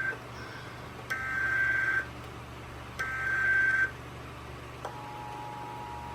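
Emergency Alert System SAME header: the end of one burst and then two more bursts of warbling digital data tones, each just under a second long and about a second apart. Near the end, the steady two-tone EAS attention signal starts and holds.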